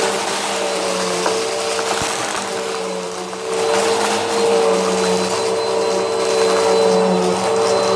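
Vacuum cleaner running steadily, a motor whine over the rush of air; the loudness dips briefly about three seconds in, then comes back up.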